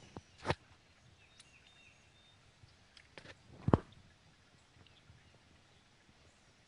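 Two sharp knocks, the second and louder one about three and a half seconds in, over a quiet open-air background with a few faint high chirps.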